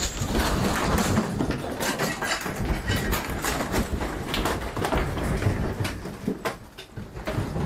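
Room and shelving shaking in a strong earthquake: shelves, stacked boxes and objects rattling and knocking over a low rumble, with many short clattering knocks throughout.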